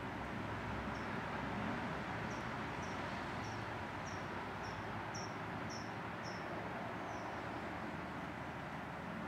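Hummingbird giving a run of short, high chip notes, about two a second, each dropping slightly in pitch. They start about two seconds in and stop after about seven seconds, over a steady rushing background noise.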